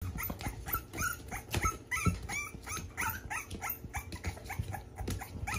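Five-week-old American bully puppies whimpering and yipping in many short, high cries, several a second.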